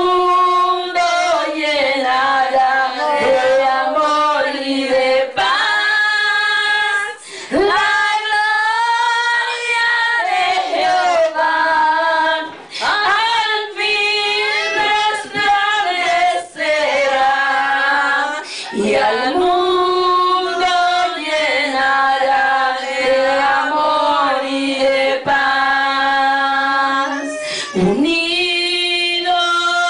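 Women's voices singing a slow worship song, with long held notes that change pitch every few seconds.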